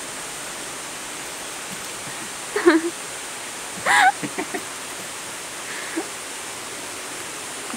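Steady hiss, with two short wavering vocal exclamations about two and a half and four seconds in, the second the louder.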